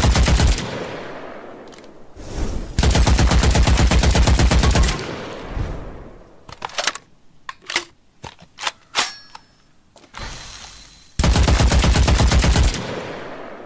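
Machine gun sound effect: bursts of rapid automatic fire, each about one and a half to two seconds long with an echoing tail, three times. Between the second and third bursts come a few scattered single sharp clicks.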